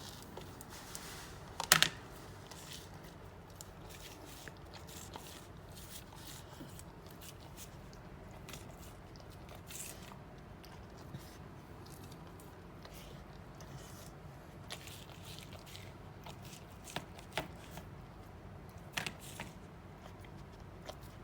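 A dog chewing and crunching on something: faint irregular crunches and clicks, with one louder crack about two seconds in and a few more near the end.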